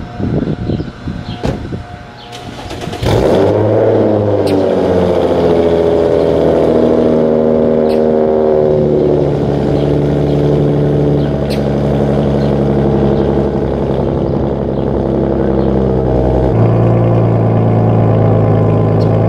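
Infiniti G35's 3.5-litre VQ V6 with a custom exhaust starting about three seconds in, then idling steadily as its high idle settles lower over the next several seconds. A few clicks and knocks come before it starts.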